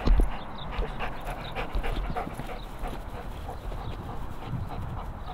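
German Shepherd panting hard while heeling close at the handler's side, with a heavy thump right at the start.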